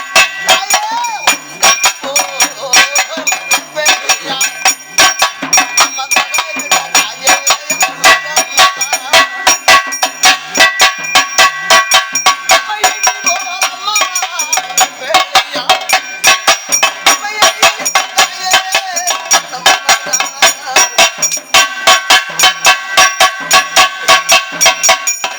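Pambai drums beating a steady, fast rhythm of about three strikes a second, over a ringing metallic tone.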